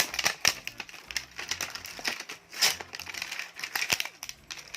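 Plastic toy packaging crinkling and crackling as it is handled, in a string of irregular sharp crackles.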